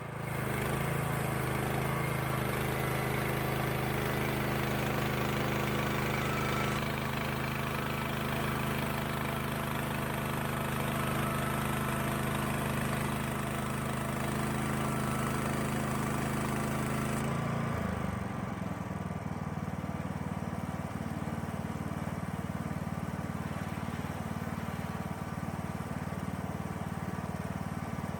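Band sawmill's engine running steadily while the blade cuts a thin veneer slice from a log. About 17 seconds in, the engine's tone shifts and the high hiss falls away, and the running continues more quietly.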